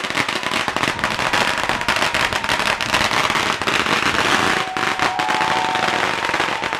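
A long string of red paper firecrackers going off in a rapid, continuous crackle of bangs.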